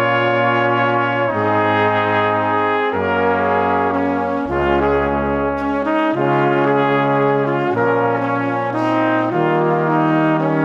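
Background music: sustained chords that change about every second and a half.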